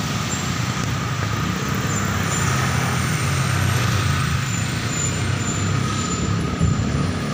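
Steady city road traffic: a continuous rumble of passing cars, trucks and buses.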